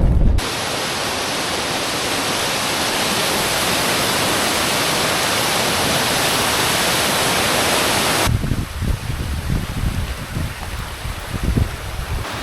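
Steady rush of falling water from a waterfall. It cuts off abruptly about eight seconds in, giving way to a quieter rushing with an uneven low rumble.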